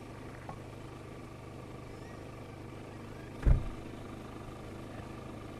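Steady low hum of an idling engine, with one dull thump about three and a half seconds in.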